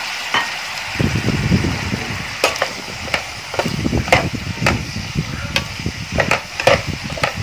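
Stir-frying in a nonstick pan: food sizzles steadily while a spatula stirs and scrapes through it. From about a second in, the spatula knocks sharply against the pan a number of times.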